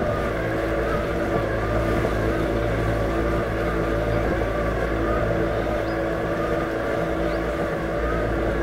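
Robotic lawn mower's electric motors running steadily: a constant hum made of several steady tones, with a faintly wavering higher whine above it.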